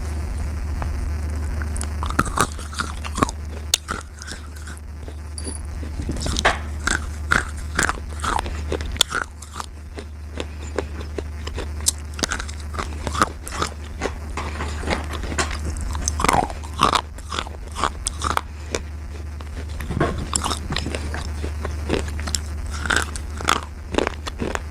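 Close-up biting and chewing of slate, many sharp, irregular crunches at an uneven pace, over a steady low hum.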